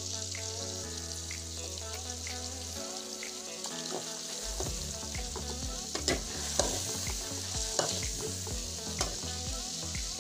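Chicken and tomatoes frying in a steel wok with a steady sizzle. A steel ladle stirs them, knocking and scraping against the pan a few times in the second half.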